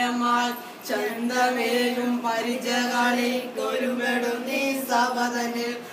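A small group of voices singing a song together, with long held notes and a short break about a second in.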